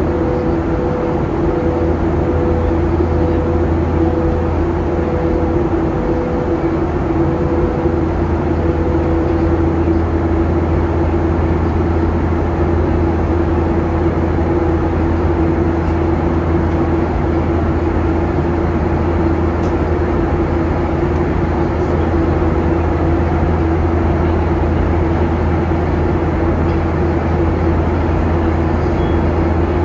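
Steady cabin noise of a Boeing 737-800 in flight, heard from a window seat: the drone of its CFM56-7B turbofan engines and rushing airflow, with a low hum and a steady tone. A fainter pulsing tone fades out about nine seconds in.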